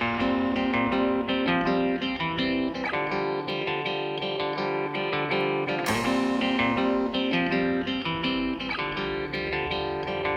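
Background music led by plucked guitar, picking out a string of notes.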